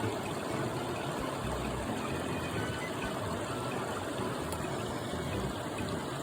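Mountain stream water rushing and splashing over rocks, a steady, even flow.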